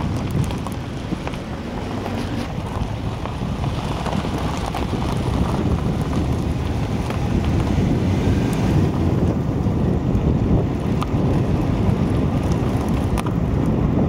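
Wind buffeting the microphone: a steady low rumble that swells and eases slightly.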